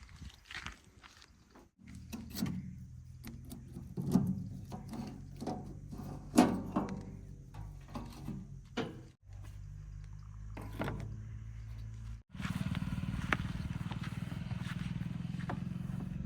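Diesel engine of heavy earthmoving or farm machinery running, with a series of sharp knocks and clatter over it. The sound breaks off abruptly twice, and after the second break the engine runs steadier and louder.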